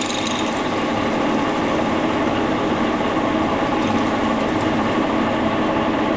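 Brown & Sharpe No. 2 milling machine with a 5 hp silent-chain drive running steadily under power, with a hum of even tones and a noisy haze, while it drills through tool steel.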